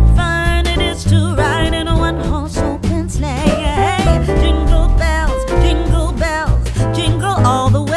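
Background song: a singer's voice with vibrato over guitar, bass and a steady beat.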